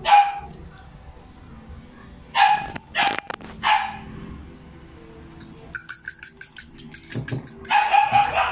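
A small dog barking in short, high yaps: once at the start, three times a few seconds in, and a quick run of barks near the end. In between comes a string of light clicks.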